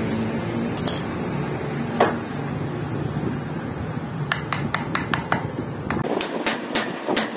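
Hammer striking a steel sleeve fitted in a motorcycle rear wheel hub: a single knock, then a quick run of sharp metallic taps, then steady blows about three a second near the end.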